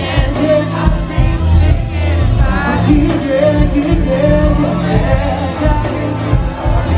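A male singer performing live through a concert PA over amplified band music with a repeating bass line, heard from among the audience in a large hall.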